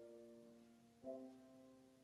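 Soft instrumental music: slow sustained chords, with a new chord struck about a second in that rings on and fades.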